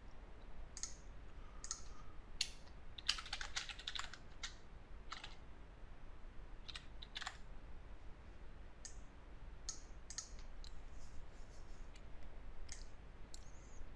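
Faint computer keyboard typing, a quick run of keystrokes about three seconds in, with single key or mouse clicks scattered through the rest.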